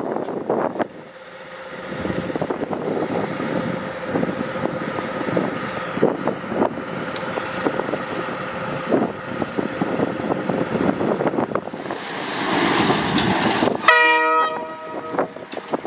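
A KiwiRail diesel train running, with steady engine and rail noise, then one short horn blast near the end.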